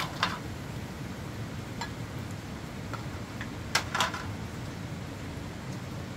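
A handful of short, sharp taps or clinks of small hard objects, the loudest two close together about four seconds in, over a steady low background hum.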